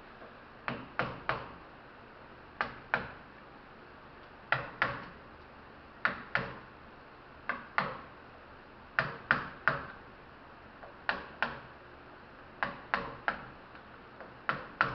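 Hammer tapping on a part of a scrapped compressor to drive it out, sharp strikes in quick groups of two or three, a new group about every second and a half, each with a short ring.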